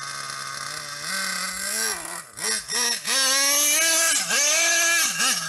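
Hobbytech Spirit EVO 1/8 buggy's 3.5 cc Alpha nitro engine idling steadily, then blipped through several quick revs and held at high revs as the buggy accelerates away, with a short dip in the middle and quick blips near the end.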